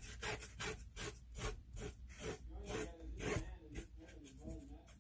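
Paintbrush scrubbing paint onto a painting board in quick back-and-forth strokes, about three scratchy strokes a second.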